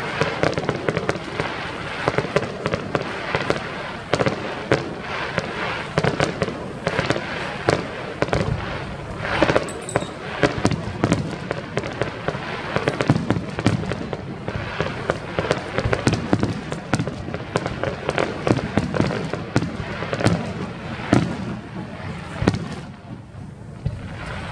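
Fireworks display: a dense, continuous run of bangs and crackles from bursting shells, thinning out near the end.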